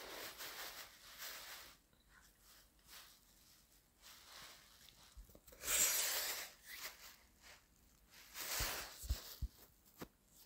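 Rustling handling noise from a smartphone being moved about, with a louder burst of rustle about six seconds in and another near nine seconds, plus a few light knocks near the end.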